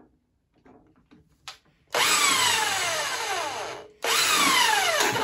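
Hitachi handheld drill boring a hole into a drill press's top cover, in two runs of about two seconds and one second, its motor whine falling in pitch during each run.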